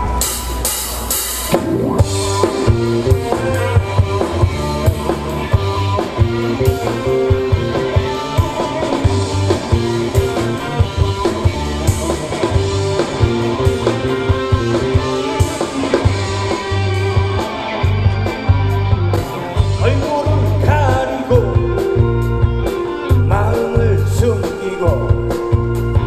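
Live rock band playing an instrumental passage: drum kit keeping a steady beat under electric guitars, bass and keyboard.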